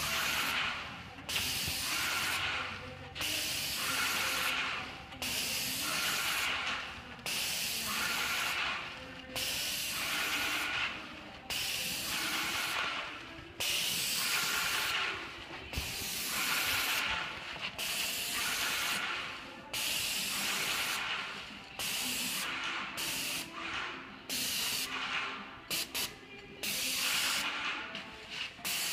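Graco JetRoller hissing as pressurised paint is pushed through it onto the roller cover. The hiss comes in repeated bursts that cut in and out about every second or two as the roller is worked over the block wall.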